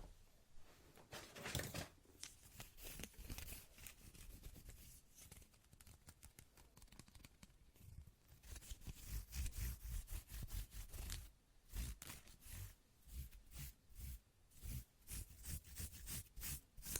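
Faint, close-miked ASMR trigger sounds: rapid crisp clicks and rustles in quick, uneven clusters.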